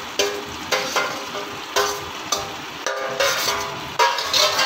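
Metal spoon knocking and scraping against a stainless steel bowl as fried chicken pieces are pushed out into a pan of sauce. There are about nine strokes, roughly every half second, and each rings briefly, over a light sizzle from the pan.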